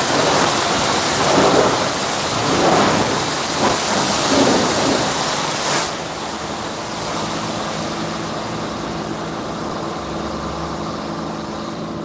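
High-pressure water spray hissing against surfaces, surging several times, cuts off about six seconds in. A steady machine hum with a low tone carries on after it.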